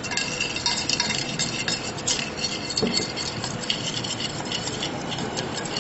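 A utensil stirring a thin paste of cornflour, chaat masala and water in a glass baking dish: continuous wet scraping with small irregular clicks against the glass.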